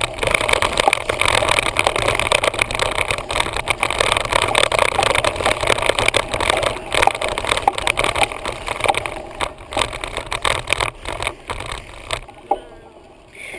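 Noise of riding a bicycle with a homemade camera mount: wind rumbling on the microphone and the mount rattling and knocking over the path, dying down sharply about twelve seconds in as the bike slows.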